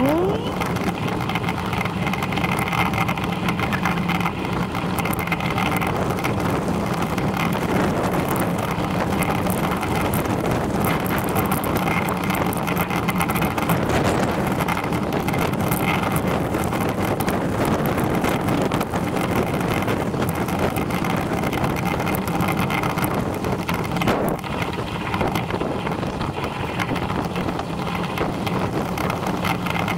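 Steady wind rush over the microphone and rolling rumble from a bicycle riding along a tarmac lane.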